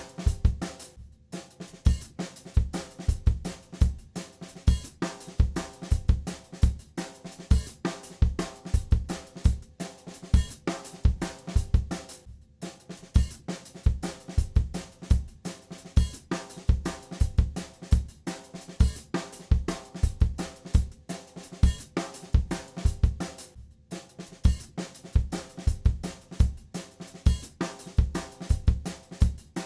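Background music with a steady drum-kit beat: kick drum about twice a second, with snare and hi-hat over it.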